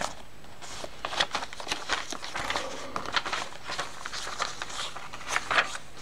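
Paper pages of a handmade junk journal rustling and crackling as they are turned and handled by hand, a quick irregular run of small crinkles.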